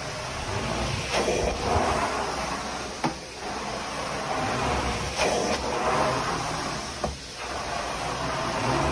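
Carpet extraction wand pulling vacuum suction through wet carpet, a steady rushing hiss that swells and dips in waves a couple of seconds apart as the wand is stroked back and forth.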